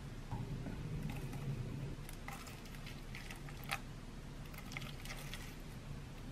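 Quiet kitchen handling sounds: a silicone spatula scraping and spreading rolled oats in a stainless steel mixing bowl, with soft rustles and small clicks, one sharper click about three and a half seconds in, over a low steady hum.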